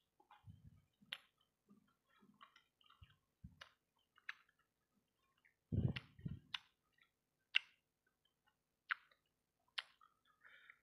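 Close-miked eating of fried rice-ball satay in sauce: chewing with sharp, wet mouth clicks spaced irregularly, about seven of them, and a few low soft thumps, the loudest a little past halfway.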